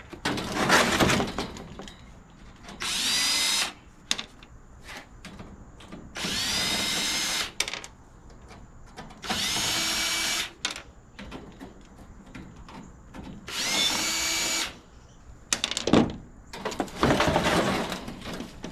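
Cordless drill backing sheet-metal screws out of an air-conditioner condenser's side panels, in four short runs of about a second each, the whine rising as the motor spins up. Loud metal clattering and rattling comes near the start and near the end as the panels are handled and come loose.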